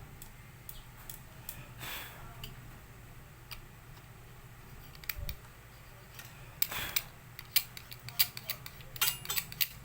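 A small sharp tool scraping and clicking against a laminator's rubber roller, clearing off melted laminating film stuck to it. There are scattered sharp clicks, short scrapes about two seconds in and near seven seconds, and a quick run of clicks near the end.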